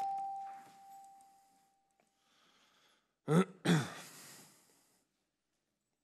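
A chord on a table zither with chord bars rings out and fades over the first second or two, one tone lingering longest. About three seconds in comes a short vocal sound from a man, with a breathy tail.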